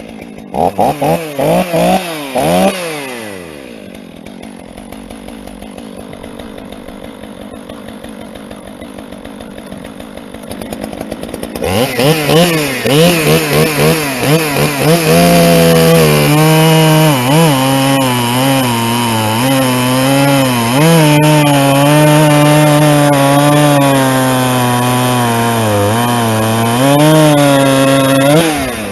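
Chainsaw blipped to full throttle a few times, then idling, then revved up and held at full throttle through a long cut in a big log, its pitch dipping repeatedly under load before the revs drop off near the end.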